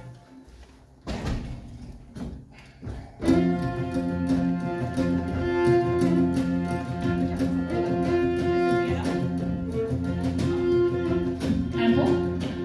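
Folk ensemble led by fiddles and other bowed strings comes in about three seconds in, holding long sustained chords over a steady low drone, after a few soft knocks.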